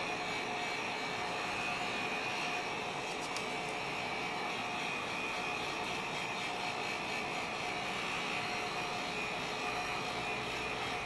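Heat gun blowing steadily with a fan whine, warming the phone's front glass to soften the adhesive.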